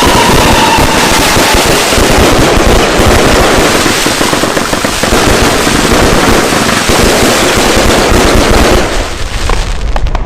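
Fireworks crackling and popping in a dense, rapid, unbroken string, like a long run of firecrackers. It thins out and becomes more scattered near the end.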